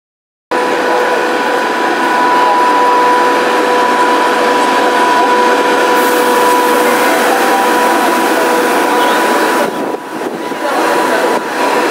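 ChS2T electric locomotive moving past on departure with a passenger train: a loud, steady whine over a broad rushing noise that dips briefly about ten seconds in.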